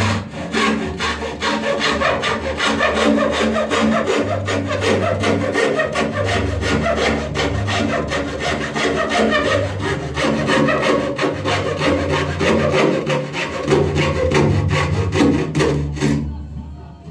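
Hacksaw cutting across a thin pallet-wood board in quick, even back-and-forth strokes, stopping about a second before the end.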